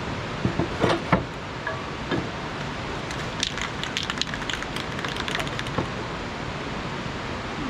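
An aerosol spray-paint can being handled and shaken, its mixing ball clicking in a quick run of rattles, after a few knocks early on, over a steady hiss.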